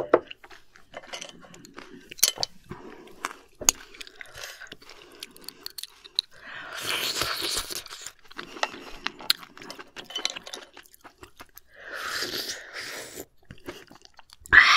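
Close-miked eating sounds of someone eating cooked surf clams: chewing with many small sharp clicks, and two longer sucking sounds about six and twelve seconds in.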